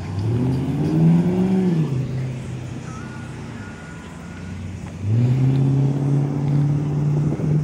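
Road vehicles accelerating past, engine pitch rising. One pulls away at the start and its pitch rises then drops about two seconds in; a second starts accelerating about five seconds in and holds a steady higher pitch.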